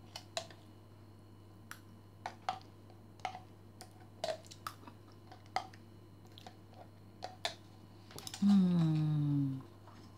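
A metal spoon clicking against a plastic yogurt bottle while the last of the yogurt is scooped and tipped out, in a scatter of light separate clicks. Near the end a person hums once for about a second, the pitch falling.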